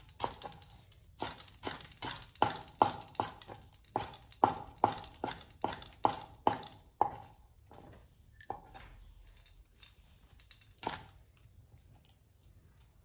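Cleaver slicing through green leaves onto a wooden cutting board: a steady run of knife strikes about two or three a second that stops about seven seconds in, followed by a few scattered knocks.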